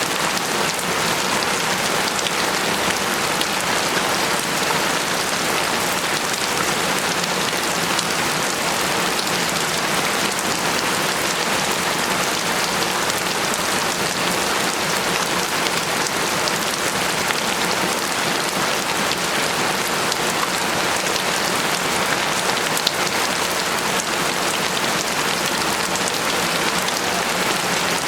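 Steady rain falling: an even hiss dotted with the ticks of single drops, holding constant throughout.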